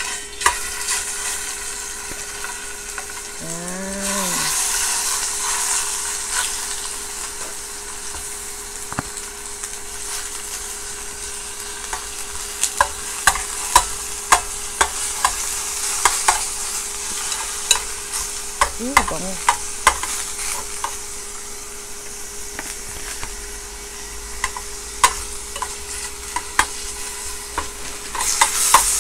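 Pork slices sizzling as they fry in sesame oil in a stainless steel pot. Metal chopsticks click against the pot as the pieces are laid in and moved around, with the clicks coming often in the second half.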